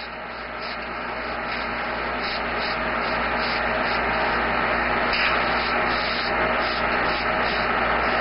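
Airbrush spraying paint: a steady hiss of air from the nozzle that grows gradually louder over the first few seconds, with a low hum underneath.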